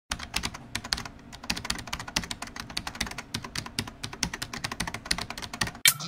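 Computer keyboard being typed on: a fast, irregular run of key clicks that stops just before the end.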